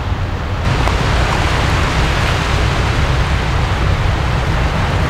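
Steady seaside noise of surf washing on a rocky shore, with wind rumbling on the microphone; the hiss steps up about half a second in.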